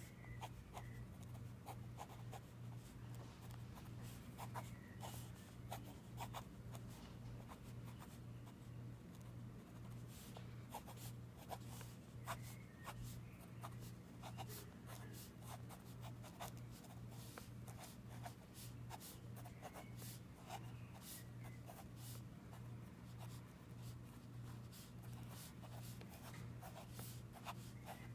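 A pen scratching and tapping on sketchbook paper in many quick, short strokes, faint, over a low steady hum.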